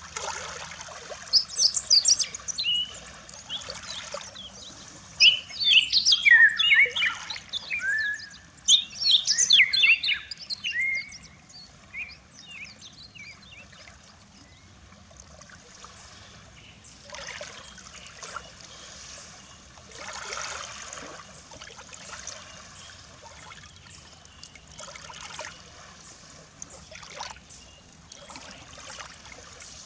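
Birds chirping and singing, loudest and busiest in the first half, over small waves lapping on the shore. In the second half the birds fall mostly quiet and soft wave washes come every few seconds.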